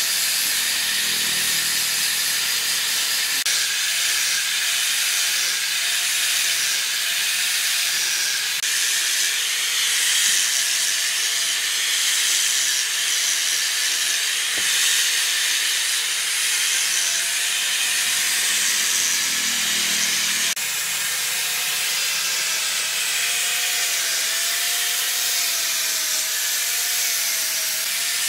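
Electric angle grinder with a sanding disc running against wood, sanding it down: a steady, high hiss of abrasive on wood over the grinder motor's whine, which wavers a little in pitch.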